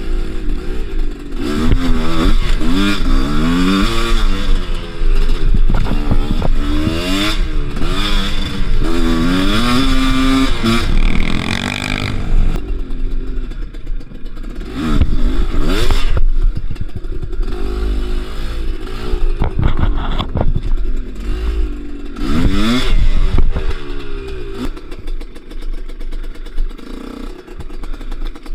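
Kews two-stroke enduro motorcycle engine revving up and down over and over, with clattering. After about twelve seconds the revs drop lower, with short bursts of throttle in the middle and again near the end.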